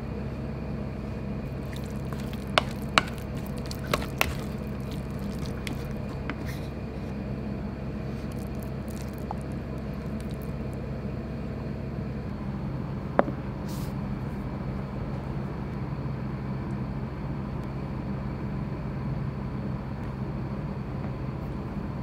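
Wooden spatula working thick green-chilli miso paste in a hammered metal pan: soft squishing, with a few sharp taps of the spatula against the pan, clustered two to four seconds in and once more about thirteen seconds in, over a steady low hum.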